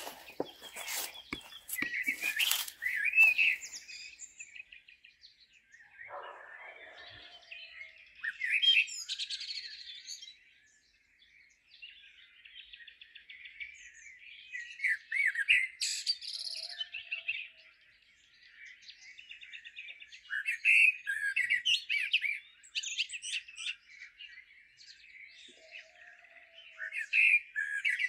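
Small songbirds chirping and warbling in clusters every few seconds. Dry leaves crunch underfoot in the first moments.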